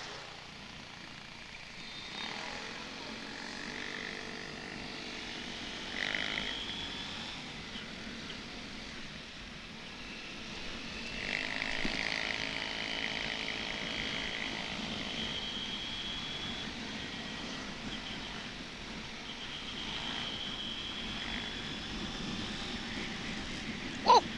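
Honda TMX125 Alpha's single-cylinder four-stroke engine running under way, its note rising and falling as the rider accelerates. It is louder from about eleven seconds in.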